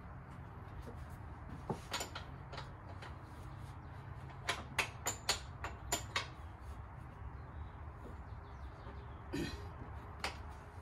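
Scattered sharp metallic clicks and taps from a hand wrench on the Tesla Model 3's front door hinge bolts, with a quick run of about six clicks in the middle and a short rattle near the end, over a steady low hum.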